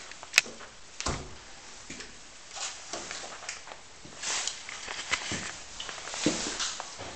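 Sharp click of an interior door's lever handle and latch as the door is opened, followed by scattered footsteps and light knocks on a wooden-style floor.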